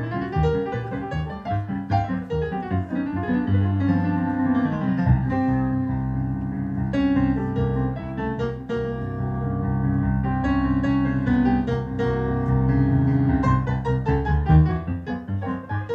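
Solo piano music played live on an electronic keyboard and heard through a PA speaker: quick runs of notes at first, then held low chords under a moving melody from about five seconds in.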